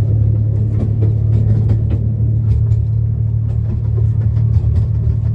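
Steady low rumble of an enclosed miniature railway carriage running along the track, with faint scattered clicks over it.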